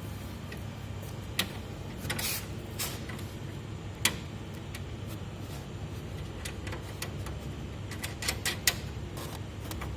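Scattered metallic clicks and clinks of a socket and nuts being worked on the motor's mounting bolts, over a steady low hum. One short scraping rasp comes about two seconds in, and a quick run of clicks comes near the end.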